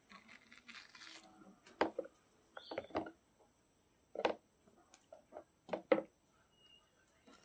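A metal spoon scraping the soft, seedy pulp out of a halved sponge gourd, then about five sharp knocks and clinks as the spoon hits the gourd's rind and the plastic tray.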